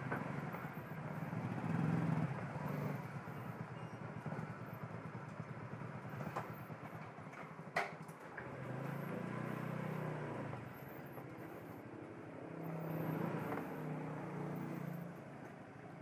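Motorcycle engines running at low revs as the bikes roll slowly in to park, the drone swelling a few times. A sharp click about eight seconds in.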